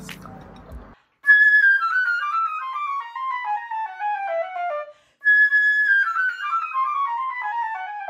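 Solo flute playing a high held note followed by a quick run of notes stepping steadily downward, about an octave and a half; the same descending passage is played twice with a short break between.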